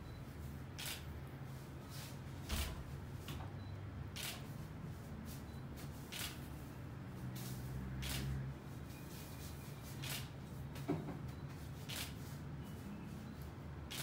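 Camera shutter firing in single clicks, about seven of them roughly two seconds apart, over a low steady hum.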